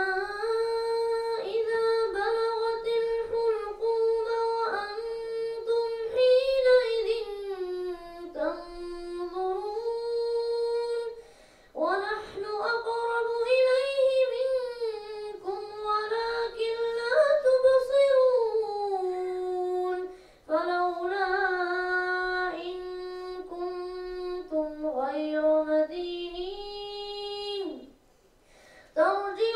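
A boy chanting melodically into a microphone in four long phrases. His held notes waver and glide, with a short breath pause between phrases.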